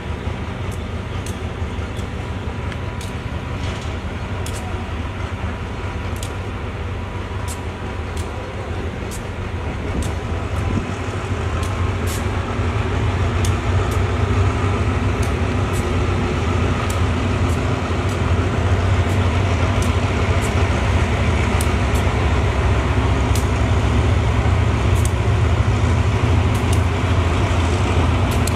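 Diesel-electric locomotive (SRT GE no. 4538) pulling a passenger train out of the station, its engine running with a low, steady drone. The drone grows louder from about ten seconds in as the train draws closer and the engine works harder.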